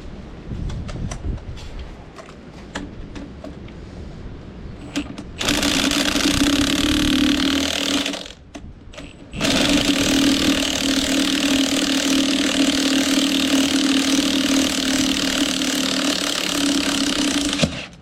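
Loud, steady tool noise from freeing a broken wheel bolt on the tractor hub, in two spells: about two and a half seconds, a short break, then about eight seconds more, cutting off just before the end. Light ticks and taps come before it.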